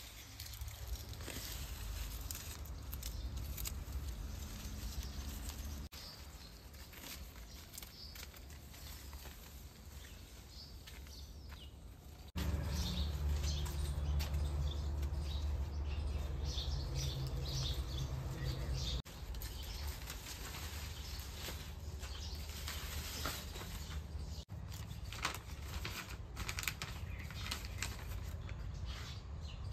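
Outdoor ambience: a steady low rumble with scattered short, high chirps or rustles. The background changes abruptly at several cuts.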